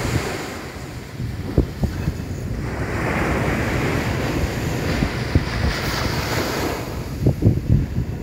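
Small ocean waves breaking and washing up a sand beach: a hiss of surf that swells about two and a half seconds in and fades near the end. Wind buffets the microphone with a gusty low rumble.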